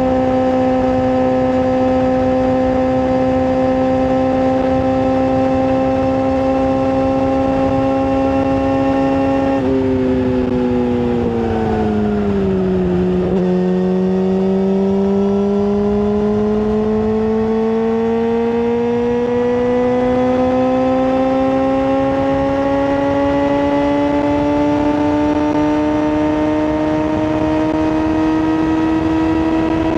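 Yamaha R6 inline-four sport-bike engine with a full aftermarket exhaust, holding a steady high-revving note. About ten seconds in, the revs drop over a few seconds, then climb slowly and steadily to a higher pitch than before.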